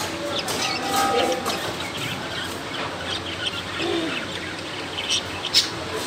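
Several cockatiels chirping and chattering, many short high chirps overlapping, with a brief whistled note about a second in.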